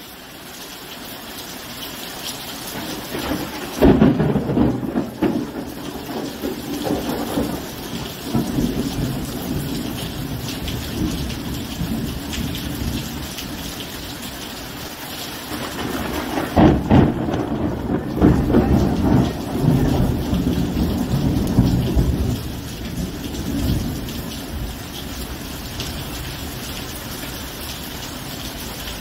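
Thunderstorm: steady rain with two loud claps of thunder, about four seconds in and again about halfway through, each followed by several seconds of rumbling. The rain fades in over the first few seconds.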